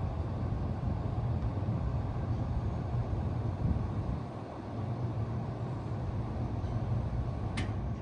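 A 4-ton Bard wall-hung heat pump running in heat mode: a steady low hum under the rush of its fan's air. A single sharp click comes near the end.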